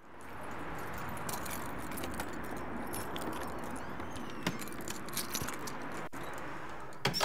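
Keys jangling as a wooden front door is unlocked and pushed open, with a few light clicks, over a steady background hiss.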